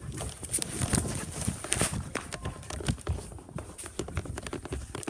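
Rapid, irregular thumps and knocks, several a second, over a steady high hiss.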